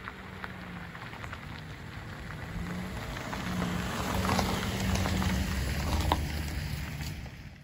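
A Toyota Corolla towing a small teardrop caravan drives past on a gravel dirt track. Its tyres crunch and pop on the stones over a low hum, growing louder as it comes close about four to six seconds in, then fading as it moves on.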